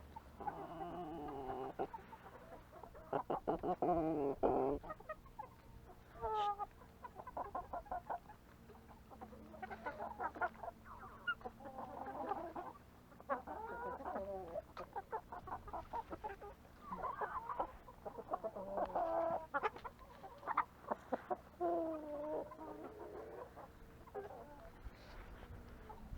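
A flock of chickens clucking and calling, short overlapping calls one after another without a break.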